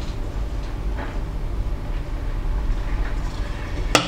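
Low steady rumble with faint handling noise, then a sharp clack near the end as a knife is put down on the desk.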